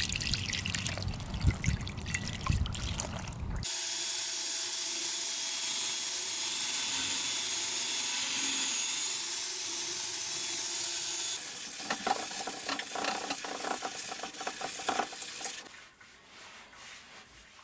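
Water poured from a pot splashing over an upturned cast iron skillet. Then a power drill with a wire brush runs steadily against the skillet's base, and after it a sponge scrubs the skillet in a sink with quick strokes, going quiet near the end.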